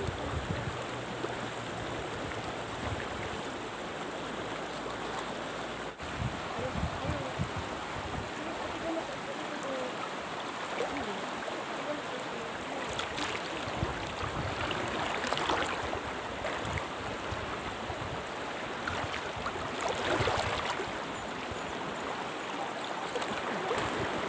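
Shallow river flowing and rippling over rocks: a steady rush of water.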